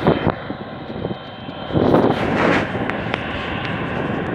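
Boeing 777-300ER's GE90-115B turbofan engines running at taxi power, heard across the airfield as a steady jet rumble with a faint high whine. A few swells of rushing noise come and go, one at the start and one about two seconds in.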